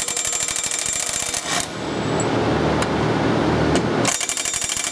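DC Matic TL900 electric hammer torque wrench hammering rapidly on stuck flywheel bolts of a Caterpillar 3512 engine, working them loose. It runs in two bursts: one at the start lasting about a second and a half, and another starting about four seconds in. A steady low hum is heard between the bursts.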